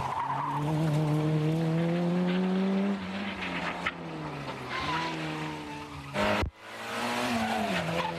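Peugeot 106 rally car engine revving hard under acceleration on a stage: its pitch climbs through a gear, drops at an upshift about three seconds in and climbs again. The sound cuts out abruptly for a moment about six seconds in, then engine noise resumes and falls away near the end.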